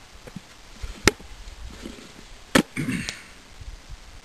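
Two sharp clicks about a second and a half apart as an empty plastic bottle, pierced through by an arrow, is handled and knocked.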